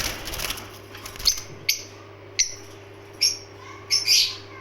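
Parblue lovebirds: a brief flurry of wing flapping in the first half second, then about six short, shrill chirps at irregular intervals, the last one a little longer. A faint steady hum runs underneath.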